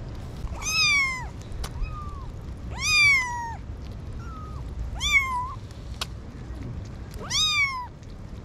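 Kittens meowing: four loud, high-pitched meows about two seconds apart, each rising then falling in pitch, with a couple of softer short mews between them.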